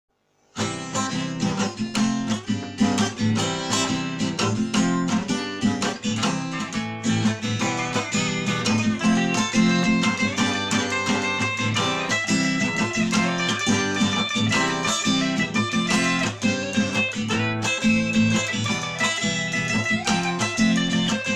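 Instrumental song intro led by strummed guitar in a steady rhythm, starting about half a second in.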